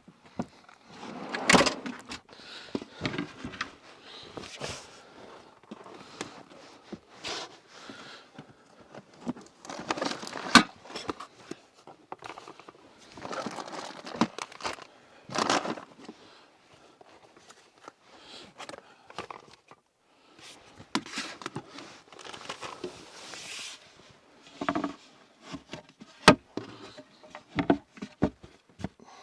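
Someone handling gear in a small enclosed space: irregular rustling broken by sharp clicks and knocks, the loudest knocks about a second and a half in, about ten seconds in, near sixteen seconds and about twenty-six seconds in.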